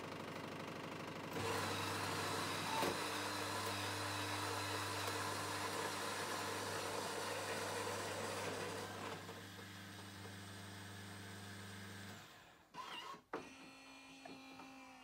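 Miele CM 7750 coffee machine's built-in grinder grinding beans: a steady motor hum with a gritty grinding noise. Near the end the grit thins out as the grinder runs on with its brush and a puff of air to clear the leftover grounds, which is a normal part of the cycle and not a sign of an empty bean container. The motor stops about twelve seconds in, followed by a few clicks and a faint hum.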